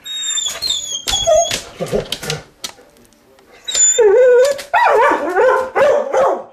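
An excited dog whining and yipping in high, gliding cries, then breaking into a run of barks and whines about twice a second from about four seconds in.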